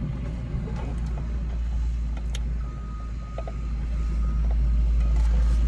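Steady low rumble of construction machinery working outside, heard from inside a car, growing louder about four seconds in.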